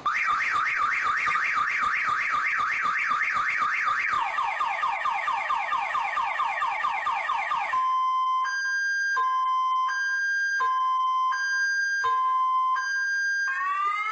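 Car alarm siren cycling through its tone patterns. It opens with rapid repeated chirps, switches to faster sweeping chirps about four seconds in, and changes to a steady two-tone hi-lo alternation, each tone lasting under a second. Near the end it changes again to slower rising whoops.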